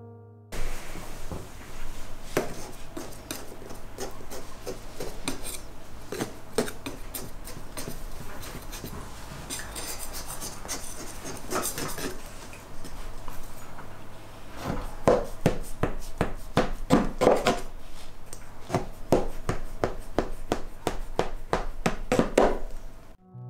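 A knife and hands working raw baklava in a round metal tray. The edges of the stacked phyllo layers are pressed down, then the top is cut through into strips, giving a run of short clicks and scrapes that grows louder and busier in the second half.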